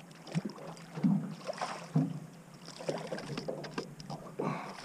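Water slapping and splashing against a flat boat's hull in irregular knocks and splashes, over a steady low hum.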